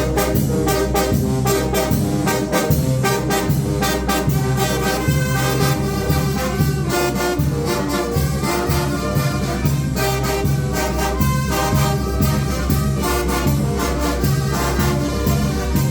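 Mexican banda de viento (brass wind band) playing, with trumpets and trombones over a steady percussion beat.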